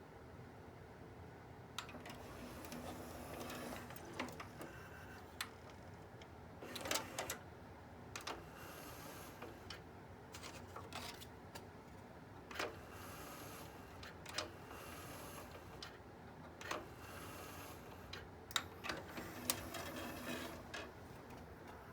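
Onkyo DX-C200 five-disc CD changer mechanism running: short stretches of small-motor whirring, roughly a second at a time, broken up by sharp clicks as the loading and carousel parts move.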